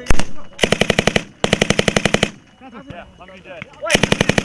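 Automatic gunfire: a single loud shot, then three rapid bursts of fire about a second apart, the last near the end.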